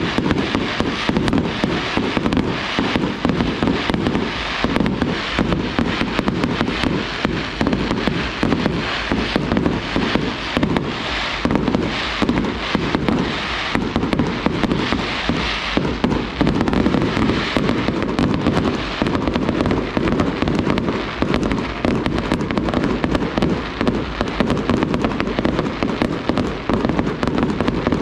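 Fireworks display: a dense, continuous barrage of shell bangs and crackling, with no pauses.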